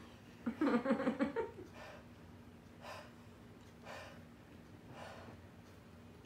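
A person breathing hard in slow, heavy puffs about once a second, easing the mouth burn from a Carolina Reaper hot-pepper jelly bean, after a short vocal groan near the start.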